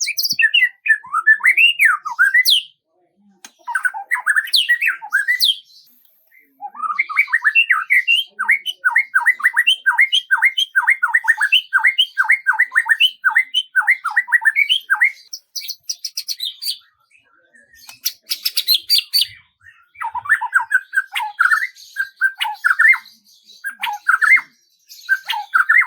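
A songbird singing in phrases of quick chirps and whistled notes. In the middle comes a long run of repeated falling notes, about three a second, followed by two short buzzy rattles.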